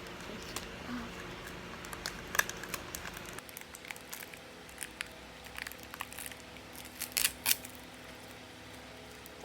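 Faint scattered clicks and light crinkling, the sound of a small container and its contents being handled.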